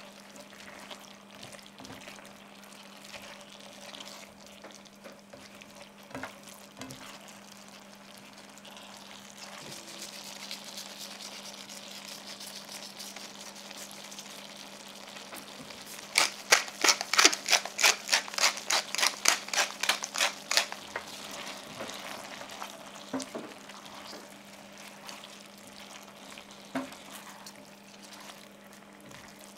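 Spaghetti, zucchini and chicken sizzling in a stainless steel frying pan, with a metal spatula stirring and scraping now and then. About halfway through comes a quick run of about twenty sharp scraping strokes, about four a second for some five seconds, the loudest part.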